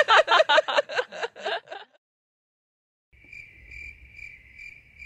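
A woman laughing loudly, a quick run of ha-ha-ha, for about the first two seconds. After a short silence, a cricket chirps steadily, about two chirps a second.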